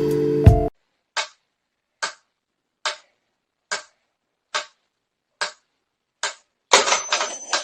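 Guitar music cuts off, then eight short, sharp ticks come at an even pace, about one every 0.85 seconds. Near the end a louder, noisier clatter follows, with a thin high whistle running through it.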